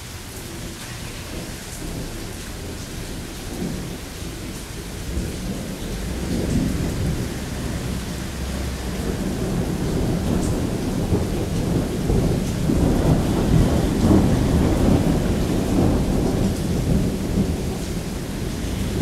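Rolling thunder that builds slowly from a few seconds in and is loudest about two-thirds of the way through, over the steady hiss of heavy rain.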